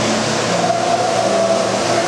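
O-gauge model trains running on a layout: a steady mechanical hum and rumble, with faint held tones over it.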